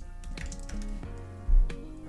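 Computer keyboard typing, a quick run of key clicks, over background music with held notes; a low thump about one and a half seconds in.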